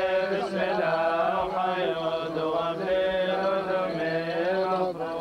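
Syriac Orthodox clergy chanting a liturgical melody together, with long held, wavering notes over a steady low drone.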